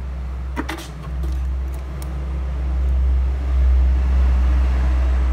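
A low rumble that swells a few seconds in. Over it, a few sharp clicks in the first two seconds as the opened phone is handled and set down on the rubber mat.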